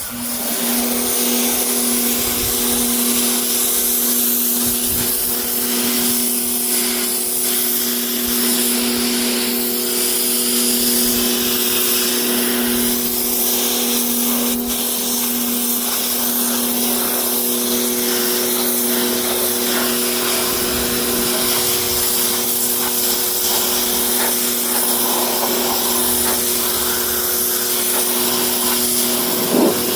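Pressure washer running steadily, a constant motor hum under the hiss of the water jet spraying car carpet.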